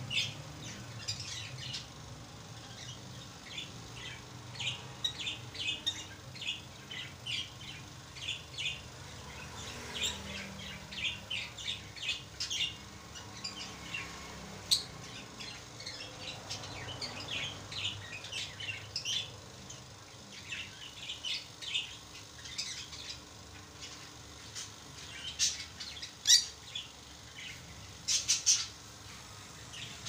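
Pair of rosy-faced lovebirds chirping: a steady run of short, high chirps throughout, with the loudest chirps near the end.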